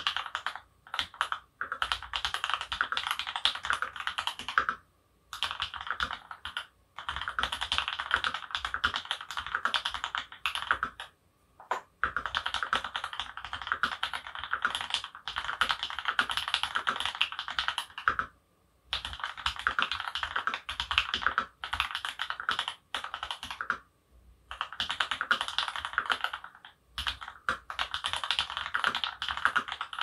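Custom mechanical keyboard with lubed Tealios linear switches in Cherry top housings on an aluminium plate, being typed on quickly. The typing comes in runs of a few seconds with short pauses between them, the longest near the middle and towards the end.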